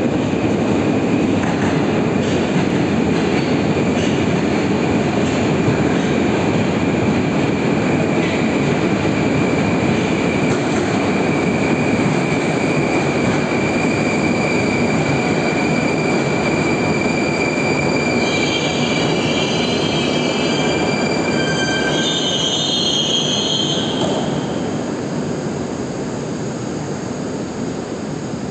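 Moscow Metro train arriving at a platform: loud running noise with a steady high whine. It squeals high-pitched from about 18 to 24 seconds in as it slows to a stop, and the noise then drops to a lower, steadier level.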